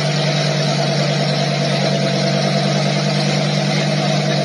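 Lamborghini Huracán's V10 engine idling steadily, a constant low pitch with exhaust noise over it.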